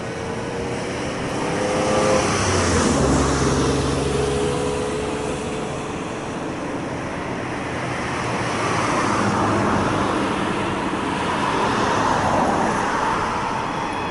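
Road traffic: a vehicle passes by, its sound swelling and then fading with a dropping engine tone, and a second vehicle passes a few seconds later.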